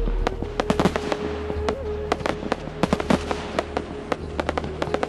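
Fireworks display: aerial shells bursting, with many sharp cracks in quick, irregular succession, over background music with a long held note and a low bass.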